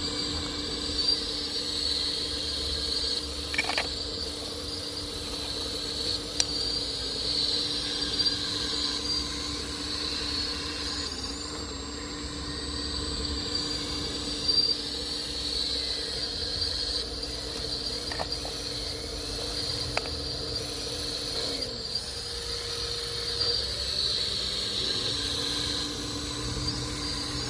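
Radio-controlled scale model of a Liebherr 954 excavator running: a steady high whine with a lower hum from its motors and drive, broken by a few sharp clicks.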